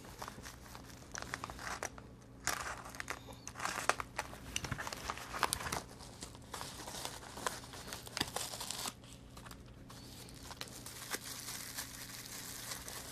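Padded plastic mailer being torn open and a bubble-wrapped part pulled out and handled: irregular crinkling and tearing of plastic packaging, busiest in the first nine seconds and quieter after.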